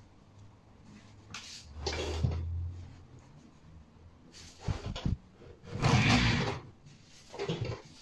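Rewound washing-machine motor used as a generator, turned by hand through a towel against the pull of a light-bulb load. There are four uneven spinning strokes of cloth rubbing and the rotor turning, with a low hum under the first, and the loudest stroke comes a little after the middle.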